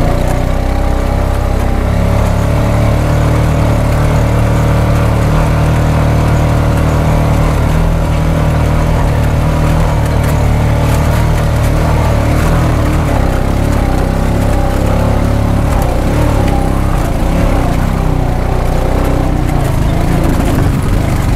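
A vehicle's engine running steadily with a low, even drone.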